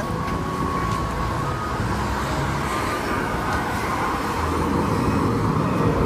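Road traffic going by: a steady mix of engine and tyre noise from passing vehicles, swelling slightly in the middle.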